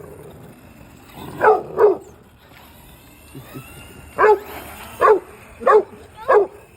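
A dog barking six short, sharp times, in two clusters, at an RC toy truck.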